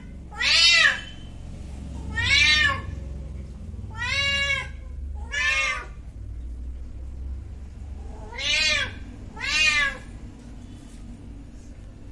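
A domestic cat meowing six times. Each meow lasts about half a second and arches up then down in pitch, with gaps of one to three seconds between them.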